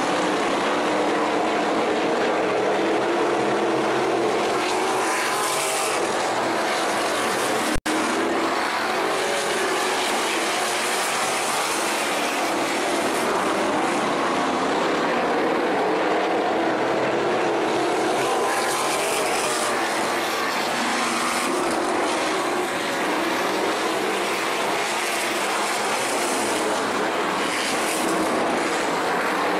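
Sprint car engines racing as a pack on a dirt oval, a steady, dense engine noise with no break, except for a momentary audio dropout about eight seconds in.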